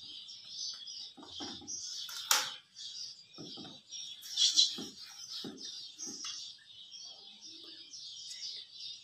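Small birds chirping continuously in the background, over soft knocks and thuds of hands and a rolling pin on a board as a stuffed paratha is patted and rolled out. There is a sharp click about two seconds in, and a louder burst of chirping a couple of seconds later.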